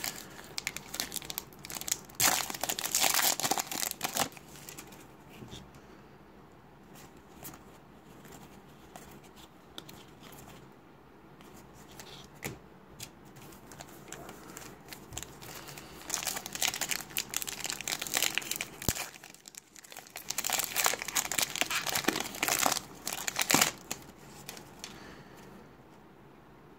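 Foil wrapper of a trading-card pack being torn open and crinkled. There is a loud spell of crinkling in the first four seconds and another from about sixteen to twenty-four seconds, with quieter rustling between.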